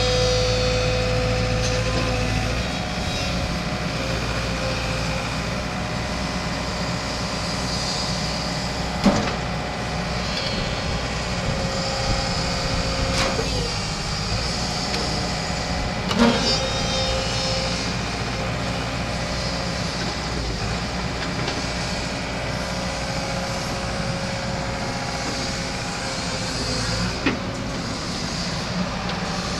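Komatsu PC138US-2 excavator running, its diesel engine steady throughout, with a whine that comes and goes and about four sharp knocks, the loudest about sixteen seconds in.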